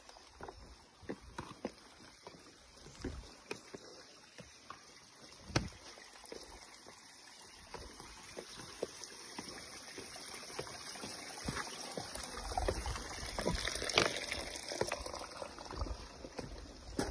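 Water sloshing and splashing with scattered light knocks, growing louder toward the latter part.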